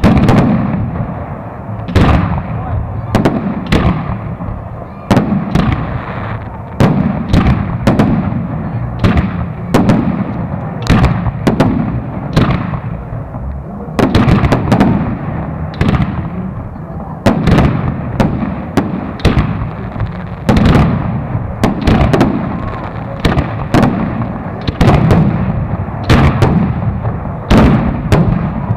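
Aerial firework shells of a professional display bursting overhead: a steady run of sharp bangs, one every second or so with some in quick pairs, each trailing a low rolling echo.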